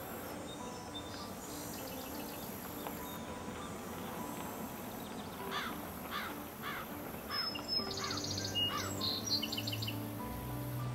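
Birds calling: a run of about six repeated calls roughly half a second apart, then a higher, quicker chattering twitter. This sits over a quiet outdoor background and soft background music.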